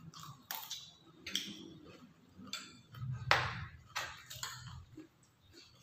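Eating at a table: a spoon and fork clinking and scraping on plates in a string of sharp clicks, the loudest a little past the middle, along with chewing.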